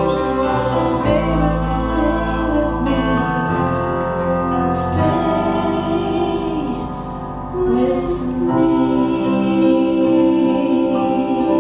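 Live band playing a Christmas song, with singing over electric guitars, drums and keyboard.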